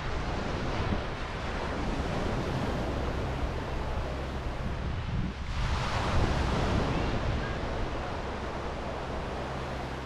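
Sea waves breaking and washing up a sandy beach, one wave surging in louder about halfway through. Wind rumbles on the microphone.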